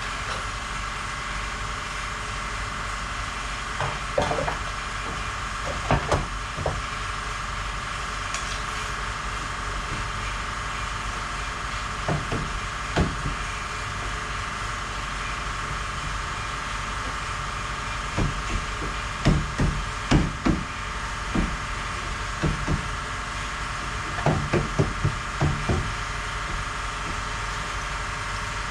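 Short knocks and clanks of sheet-metal bodywork on a rusted truck rocker panel, coming in small groups, the loudest a little past the middle, over a steady mechanical hum.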